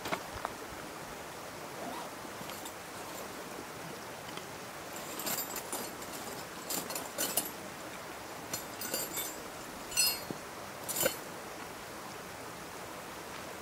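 A camping gear bag being opened and rummaged through by gloved hands: a run of short, sharp clicks and rattles in the second half, the loudest two close together near the end, over a steady outdoor hiss.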